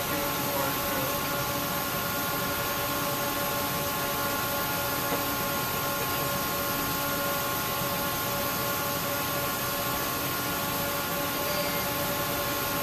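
Steady cockpit noise of a KC-135 Stratotanker: an even rush of air with several constant whining tones, unchanging throughout.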